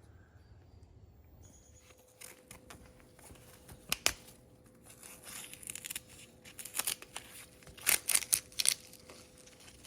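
Crinkly rustling and crackling as something is handled, in irregular bursts that start about two seconds in and are loudest near the end.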